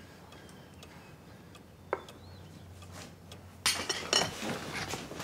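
Tableware at a laid table: a single light clink of a spoon against china about two seconds in, then near the end a sudden run of rustling and knocks as people move and get up from the table.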